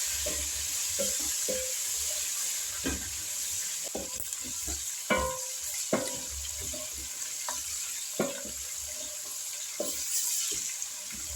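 Onions frying in oil in a pot with a steady sizzle, stirred with a stick that knocks sharply against the pot a handful of times.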